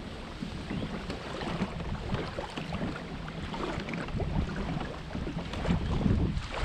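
Wind blowing on the microphone in uneven gusts, with light water lapping in the shallows.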